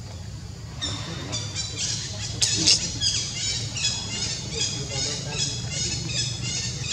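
Rapid series of high-pitched chirping animal calls, about three a second, starting about a second in, over a steady low hum.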